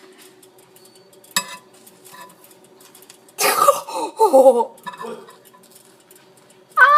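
Metal cutlery clinking once, sharp with a short ring, as a spoon is fetched; about halfway through, a short burst of human voice, like a cough, is the loudest sound. A steady-pitched tone starts just before the end.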